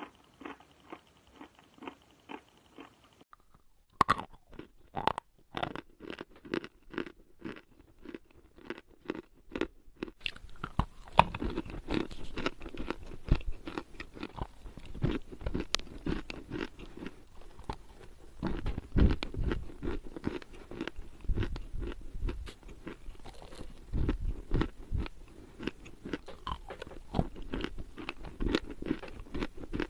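Dry chalk bitten and chewed close to the microphone. There is a sharp snap about four seconds in, then a quick run of separate crisp crunches, which turns into dense, continuous chewing from about ten seconds on.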